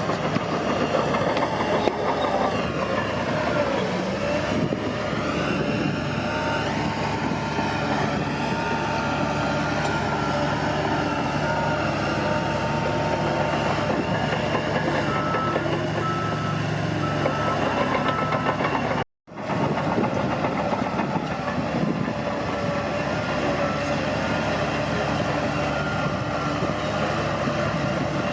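Bulldozer's diesel engine running hard with clattering steel tracks, and a reversing alarm beeping for a few seconds past the middle. The sound drops out for a moment about two-thirds of the way through.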